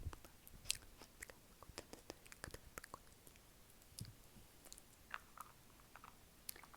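Fast ASMR mouth sounds: quick, irregular wet clicks and smacks of the lips and tongue, several a second.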